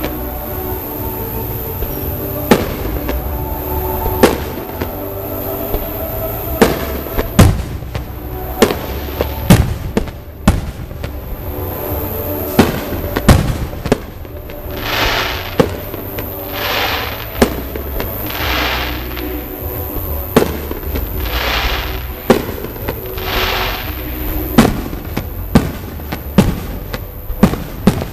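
Fireworks display: aerial shells bursting with sharp bangs every second or so. In the second half come about five hissing swells, each about a second long.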